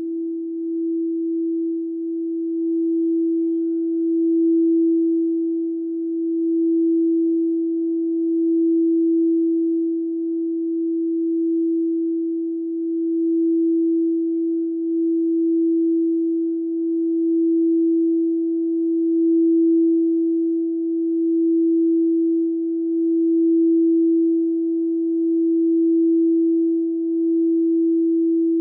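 A frosted quartz crystal singing bowl sung by a mallet rubbed around its rim, holding one steady, pure tone that swells and eases about every two seconds.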